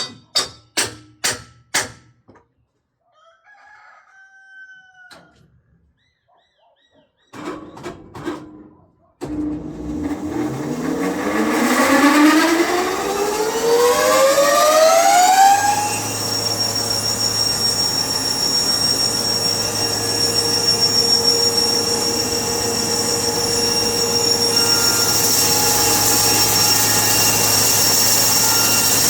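A few sharp clicks and knocks, then a motor-driven machine starts up. Its whine rises steadily in pitch for several seconds as it spins up to speed, then settles into a steady running sound.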